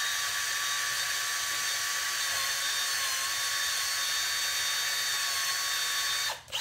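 Cordless drill running at steady speed as a step bit cuts a 1 1/8-inch hole through a flat PVC end cap: a steady high-pitched whine that dips slightly in pitch about three seconds in and cuts off near the end.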